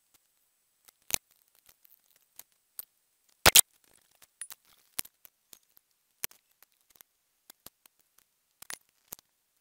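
Irregular light clicks and taps of a metallic Sharpie marker's tip dotting onto a ceramic mug, with a louder double knock about three and a half seconds in.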